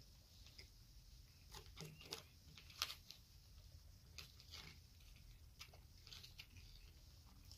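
Faint eating sounds: a mouthful of sushi roll being chewed with the mouth closed, with scattered light clicks of a metal fork against a plastic takeout tray. The loudest click comes a little under three seconds in.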